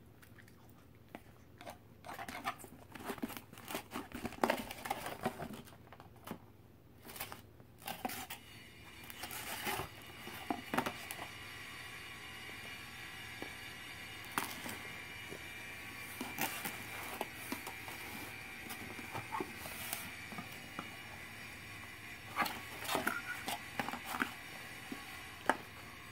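A small dog chewing and smacking on food fed from a plastic fork, with the fork clicking and scraping on a foam plate: a run of short crackly clicks and smacks, sparse at first and busier from about two seconds in.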